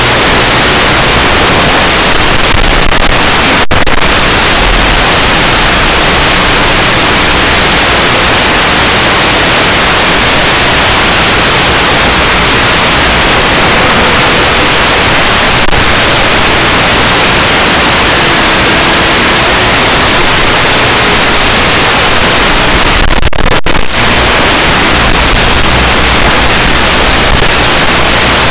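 Loud, steady static hiss, even and unbroken, with a couple of brief dropouts near the start and about three-quarters of the way in.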